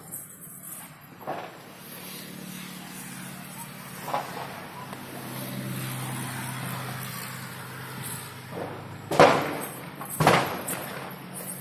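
A motor vehicle's engine hum rises and fades over several seconds, followed near the end by two loud sudden sounds about a second apart.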